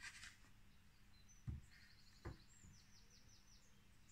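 Near silence, with faint bird chirps and a quick trill in the second half and two soft knocks, about one and a half and two seconds in, as pallet boards are handled.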